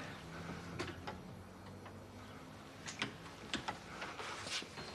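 Quiet room tone with a faint steady low hum and a few soft, irregular clicks and taps.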